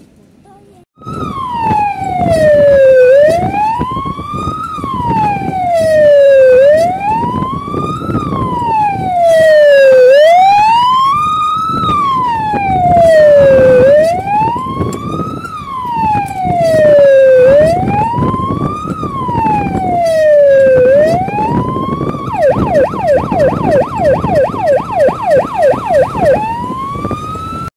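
Police siren on a Škoda Favorit patrol car wailing loudly, one slow rise and fall about every three and a half seconds, switching near the end to a fast yelp of about three sweeps a second and then back to the wail. The car's road noise runs underneath.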